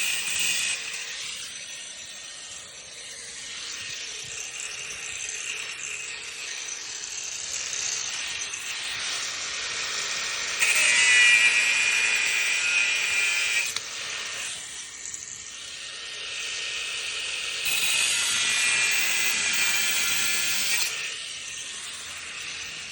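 Power tool cutting through protruding steel bolt ends, a sustained high hissing cut. There are two louder cuts of about three seconds each, around 11 and 18 seconds in, with lighter running between them.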